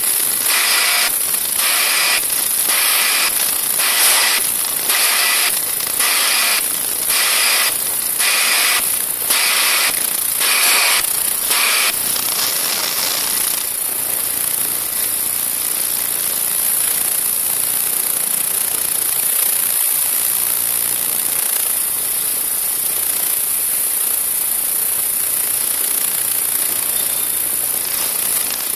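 Vibrating sieve machine with an ultrasonic mesh-cleaning system running, with a steady high hiss. For about the first twelve seconds the sound pulses in a regular rhythm, a little more than once a second, then it settles into even, steady running.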